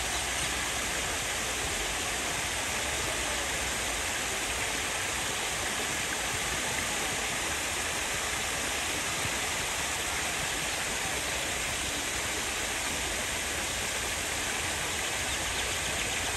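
Steady, unbroken rushing of flowing water.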